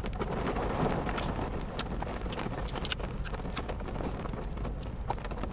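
Rain tapping steadily on a car's roof and windows, heard from inside the cabin, with some soft handling of food containers.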